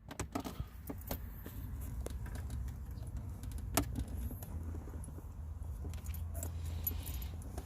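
Scattered small clicks and light metallic rattles of hands working with small parts, like keys or fuse-box pieces, over a steady low rumble.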